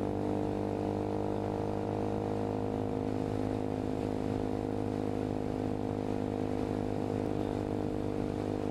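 Hawk 250 motorcycle's single-cylinder engine running at a steady cruise, its pitch holding constant.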